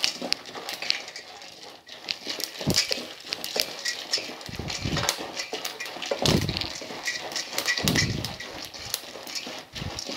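Wooden spatula stirring roasted gram, peanuts and curry leaves in ghee in a stainless steel pan: the dry lentils rattle and scrape against the metal in several slow strokes, over a constant light crackling of the frying.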